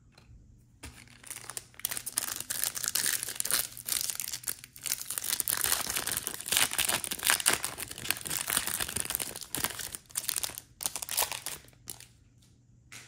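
Foil wrapper of a Topps Stadium Club Chrome trading-card pack being torn open and crinkled by hand: a dense run of crackling and tearing that starts about a second in and stops about a second before the end.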